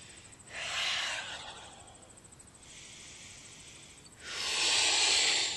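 A man breathing out hard through a wide-open mouth in two long breathy sighs, about half a second in and again near the end, with a softer breath between them.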